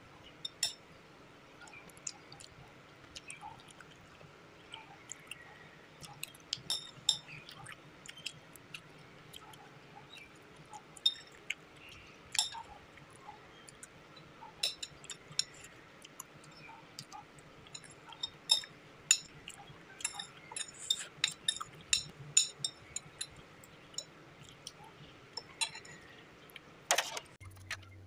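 Metal fork and spoon clinking and scraping on a plate, with soft chewing and mouth sounds, in scattered sharp clicks; one louder knock near the end.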